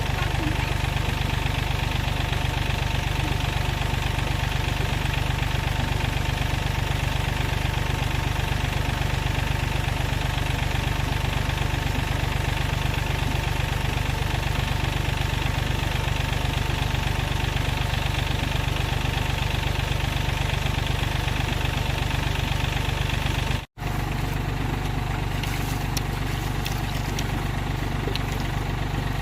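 An engine idling steadily, broken by a momentary dropout near the end.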